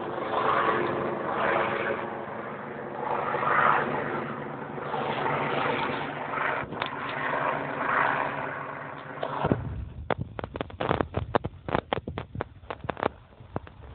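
Helicopter overhead, a steady engine-and-rotor drone that swells and fades as it circles. About nine and a half seconds in the drone drops away and a run of sharp crackling pops takes over.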